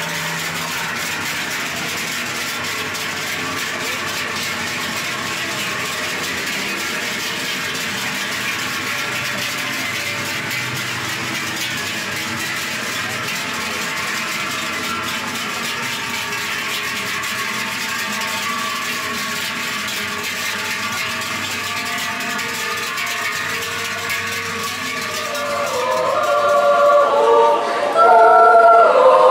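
Many large cowbells on a herd of cows walking past, clanging together in a steady, dense din. Near the end a choir of children and adults starts singing and grows louder than the bells.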